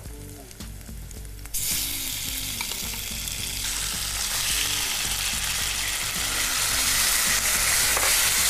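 Cooked mung and toor dal tipped into hot oil-and-ghee tempering in a kadhai: a sudden loud sizzle about a second and a half in, which keeps going and grows a little louder as the dal is stirred in the hot fat.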